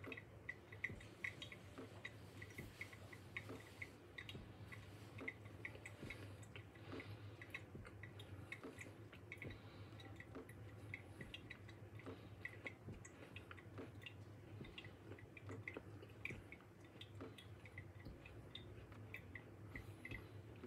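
Coffee in a pour-over dripper, brewing with faint, irregular small drips and ticks, several a second, over a low steady hum.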